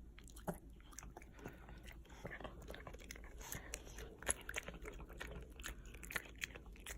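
A dog chewing a crunchy snack: irregular crisp crunches and bites, quick and uneven.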